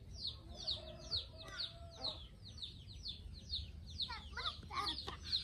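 Birds chirping: a run of short chirps, each falling in pitch, several a second, with a few lower calls mixed in about four seconds in.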